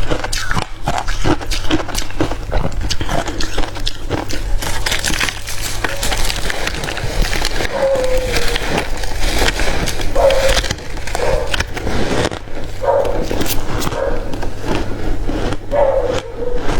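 Hard crushed ice being chewed close to the microphone: dense, rapid crunching and cracking.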